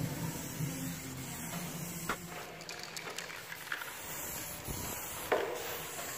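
Aerosol spray can hissing as it coats the bare steel of a truck bonnet panel, with two sharp knocks, one about two seconds in and a louder one about five seconds in.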